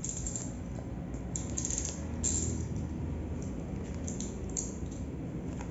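Hands peeling clear plastic shrink wrap off a new smartphone box, the wrap crinkling in short crisp bursts.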